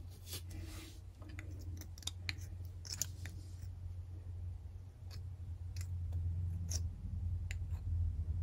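Razor blade scraping old glue residue off a metal rearview mirror mounting button, in short irregular strokes, to leave a clean surface for fresh glue. A low steady hum runs underneath.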